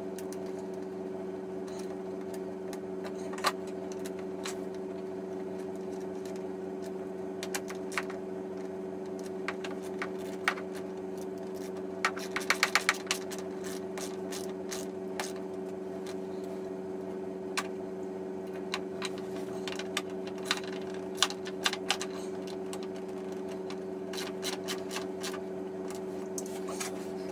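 Hand tools clicking on metal bolts and hardware as a rack is bolted down to a snowmobile's tunnel: scattered sharp clicks, with a quick run of about five ratchet clicks near the middle, over a steady low hum.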